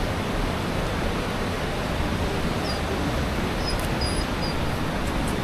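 Steady rushing of a fast mountain river, with a few faint high chirps about halfway through.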